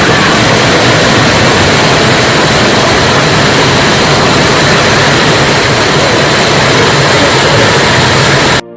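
Loud, steady roar of rushing water from a waterfall, cutting off abruptly near the end.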